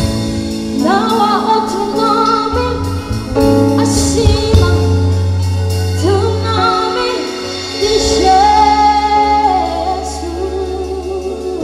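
A woman singing a gospel worship song, holding long notes, backed by a live band of drum kit, electric guitars and keyboards.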